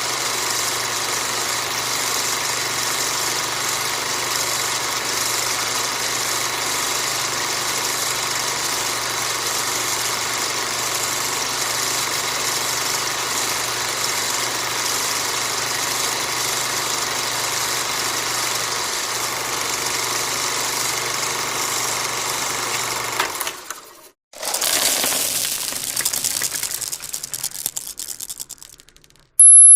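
A steady mechanical running sound, like a motor or engine idling, that cuts off abruptly about 23 seconds in. A short rattling burst follows and fades away over a few seconds, and a steady high-pitched tone starts just before the end.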